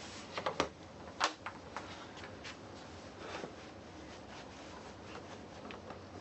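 Small clicks and taps of parts and tools being handled. A few sharp clicks come in the first second and a half, the loudest about a second in, then lighter scattered ticking.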